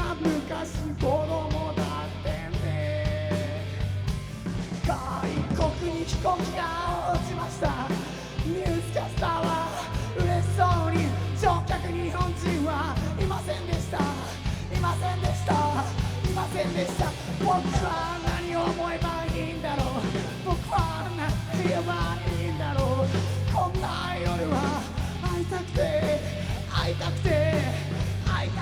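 Rock band playing live: a steady bass line and drums under a wavering lead melody, at a constant loud level.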